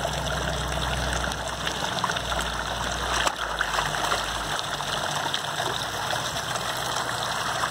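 Steady running and trickling water from a steaming hot-spring pool.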